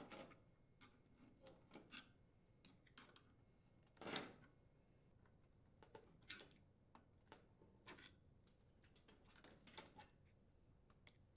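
Faint, scattered small clicks and taps of wire connectors being worked off the terminals of a radiant surface element on an electric range, with one louder knock about four seconds in.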